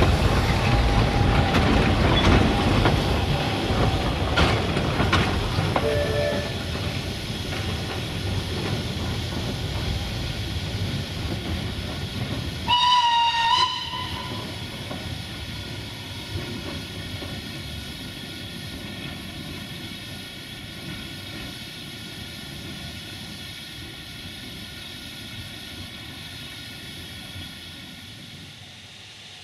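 Narrow-gauge train rolling past close by, its wheels rumbling and clicking over the rail joints, then a steam locomotive's whistle blown once for about a second, about halfway through. After the whistle the train's sound fades steadily as it moves away.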